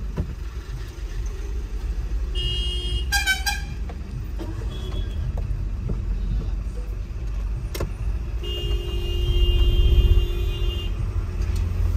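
Steady low rumble of a car's engine and road noise heard from inside the cabin while driving. Vehicle horns cut through it: short honks about two and a half seconds in, and a longer honk of about two seconds starting around eight and a half seconds in.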